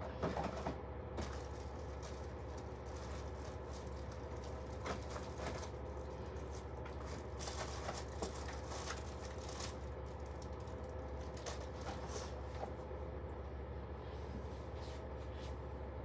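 Faint rummaging and rustling, with scattered light knocks and clicks, as someone searches through belongings for a bottle, over a steady low room hum.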